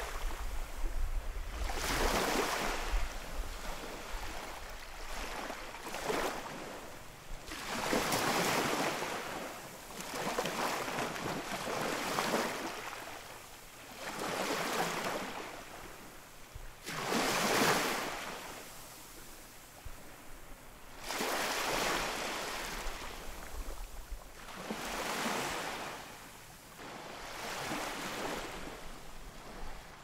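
Ocean waves breaking on a shore, one after another. Each wave swells up as a rush of noise and then fades away, with a new wave coming every three to four seconds.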